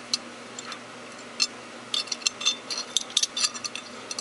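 Small steel parts of a Tokarev TT33 pistol clicking and clinking as they are fitted back together: a sharp tick near the start, another about a second and a half in, then a quick run of ticks between about two and three and a half seconds.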